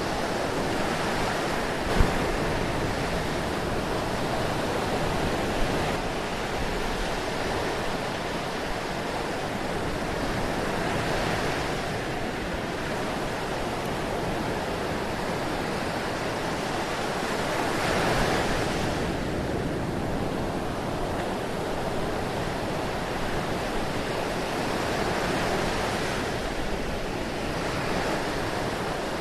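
Ocean surf washing ashore: a continuous rush of waves that swells louder every several seconds as each one breaks. A single sharp click about two seconds in.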